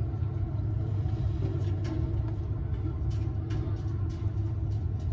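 A steady low rumble with faint scattered clicks and rustles above it.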